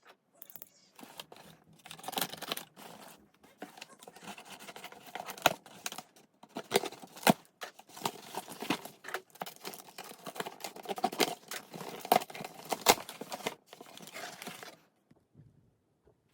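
Cardboard and plastic packaging being handled: rustling and crinkling with many sharp clicks and knocks. It stops about fifteen seconds in.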